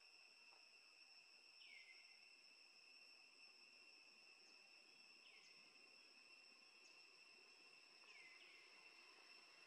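Faint, steady high-pitched insect trill from the surrounding trees, with a short downward chirp repeating every few seconds.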